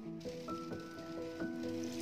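Background music: a soft melody of held notes, stepping to a new note every fraction of a second.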